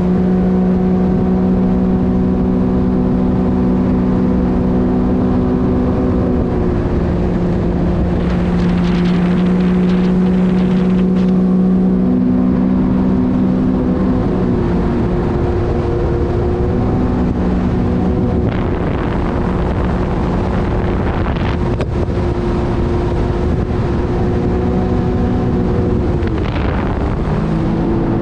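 Sea-Doo GTR 230 personal watercraft's supercharged three-cylinder engine running steadily at a cruising speed of about 45 mph, its drone briefly dipping and rising again as the throttle eases, most clearly near the end. Rushing water and wind noise run underneath.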